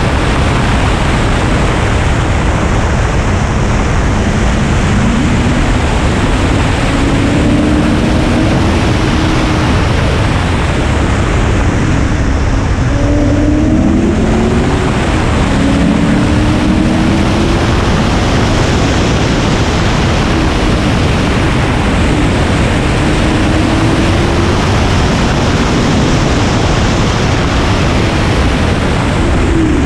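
Car driven hard on a race track, heard from a hood-mounted camera: steady wind rush on the microphone covers most of the sound, with the engine faintly underneath, its pitch climbing and dropping several times as it accelerates and shifts.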